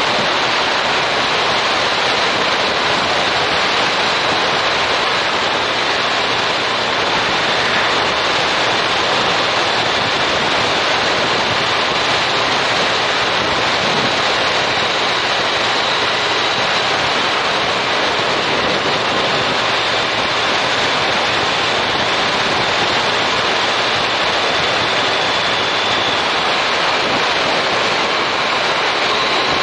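Steady, loud wind rush over a motorcycle-mounted action camera's microphone while riding at road speed, with no engine note standing out.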